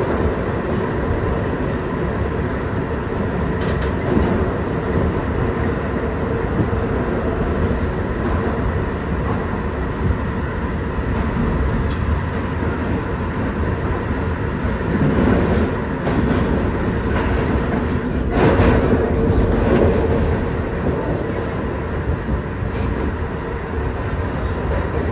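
Kawasaki R-62 subway train running through a tunnel, heard from inside at the front window: a steady rumble of wheels on rail with sharp clicks over rail joints, louder for a couple of stretches midway and easing a little near the end as it enters a station.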